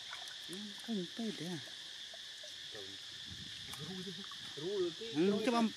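Steady chirring chorus of crickets or other insects, with a pitched voice in short rising and falling phrases about half a second in and again, louder, near the end.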